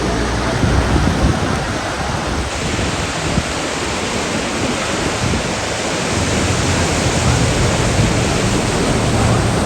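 Heavy rain pouring down in a dense, steady hiss, with wind rumbling on the microphone that grows stronger about two thirds of the way through.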